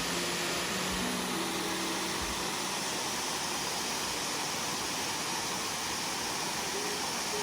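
Waterfall's rushing water as a steady, even hiss. A few faint held music notes come in over it in the first couple of seconds and again near the end.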